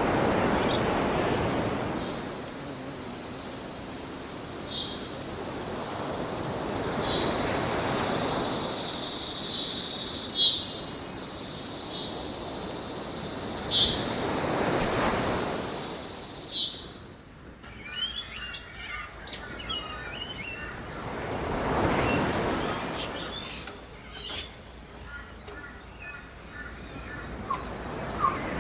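Waves washing onto a beach, each swelling and falling away over several seconds, with birds chirping over them. About 17 seconds in, a high steady hiss cuts off and a busier twittering of small birds takes over.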